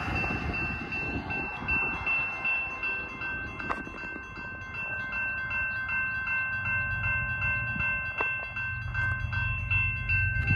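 Grade-crossing warning bell ringing in a fast, even rhythm, the crossing activated for an approaching train. Wind buffets the microphone at the start, and a low rumble builds in the second half.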